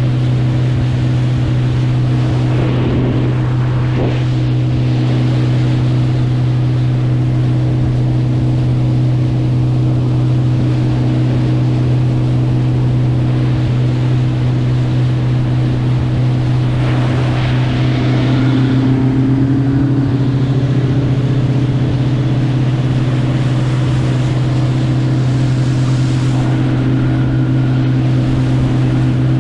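Motorboat engine running steadily at cruise, a constant low drone with rushing water and wind noise.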